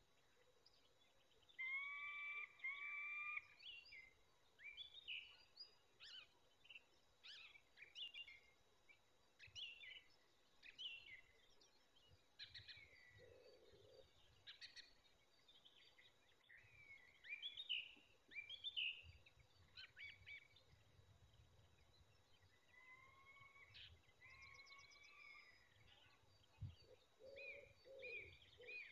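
Several small birds chirping and singing, with long whistled notes in pairs near the start and again later, and low cooing notes near the end.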